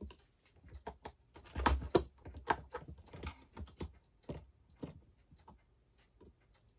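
Irregular light clicks and taps of small metal parts and a tool being handled as a part is taken off the gear side of a 1947 Lionel 675 locomotive's motor. The clicks are busiest in the first two seconds and thin out after about five seconds.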